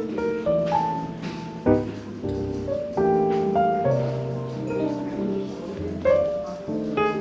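Smooth jazz piano music, with sustained chords and melody notes over a walking bass line.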